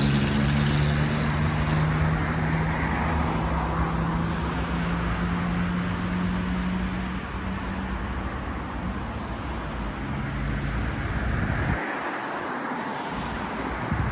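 Road traffic: a vehicle's engine humming steadily over tyre and road noise, gradually fading. The low hum dies away about twelve seconds in.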